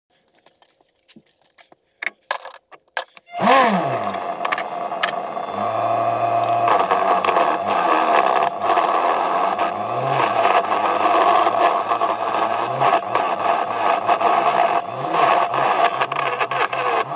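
A few scattered clicks, then a wood lathe starts about three seconds in and runs with a steady hum while a hand-held turning tool cuts the spinning wooden bowl blank, a continuous scraping.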